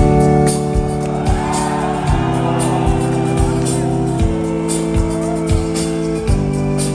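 Live band music: sustained organ chords that change about every two seconds over a steady drum beat. Audience whoops and shouts ride over it early on.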